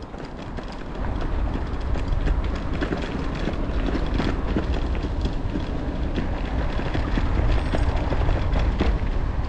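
Mountain bike rolling over a gravel path: tyres crunching on loose stones and the bike rattling with many small clicks, over a steady low rumble that grows louder about a second in.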